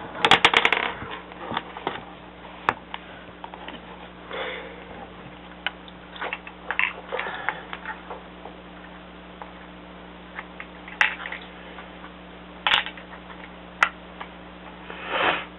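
Plastic LEGO pieces clattering and clicking as the model is handled. A quick run of clicks and rattles comes in the first second, then scattered single clicks and short rustles, with a longer rustle near the end.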